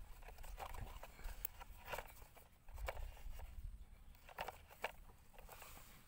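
Light handling noises from fingers working string around a plastic toy truck: scattered small clicks and rustles at irregular moments, over a faint low rumble.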